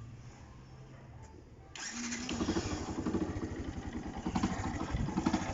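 Motorcycle engine being started on its electric starter, just rebuilt with new brushes. It catches about two seconds in and then runs with a rapid, uneven pulsing beat.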